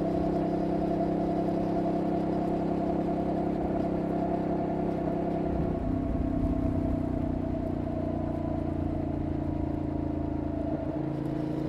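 Benelli Leoncino Trail 800's parallel-twin engine and exhaust running steadily while the bike cruises. The engine note shifts about six seconds in and again near the end.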